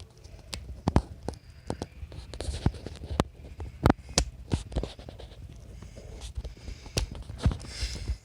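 Close handling noise as plastic light strips and zip ties are worked onto a bicycle wheel: scattered sharp clicks and knocks at irregular moments over scraping and rustling, with a short rasp near the end.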